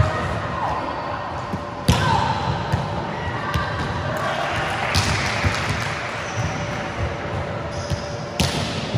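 Volleyball being struck by hands and hitting the floor during a rally, a few sharp smacks (the loudest about two seconds in, others about halfway and near the end) echoing in a large sports hall, with faint player voices.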